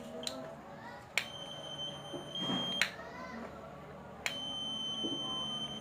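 Continuity tester beeping twice as the light switch is clicked on and off: a steady high beep of about a second and a half starts with each click and stops with the next, showing that the cleaned switch contacts now connect.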